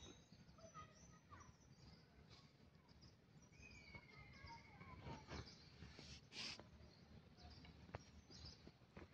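Faint outdoor ambience with scattered bird chirps, including a wavering whistle about four seconds in, and a few soft clicks and a brief hiss.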